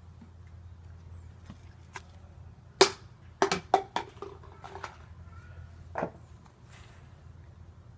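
Several sharp knocks or bangs: one about three seconds in, a quick run of four within the next second or so, and one more near six seconds, over a low steady hum.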